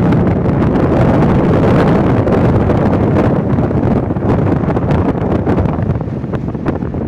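Strong wind buffeting the microphone: a loud, steady rumble and hiss with no clear tones.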